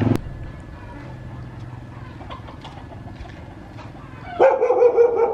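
A little dog barking a few times in quick succession near the end, after a few seconds of faint scattered clicks.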